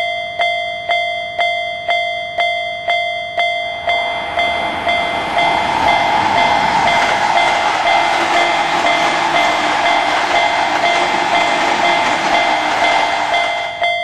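Railroad crossing warning bell ringing steadily, about two strikes a second. From about four seconds in, a passing train's rushing rumble joins it and carries on until near the end, while the bell keeps ringing.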